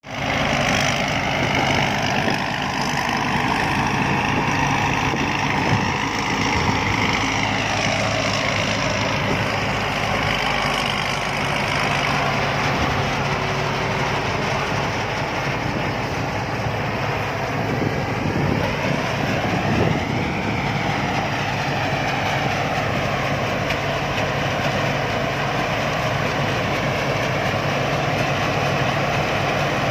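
Rice combine harvester's diesel engine running steadily, with a constant low hum under a broad mechanical roar that swells and sweeps slowly in pitch twice.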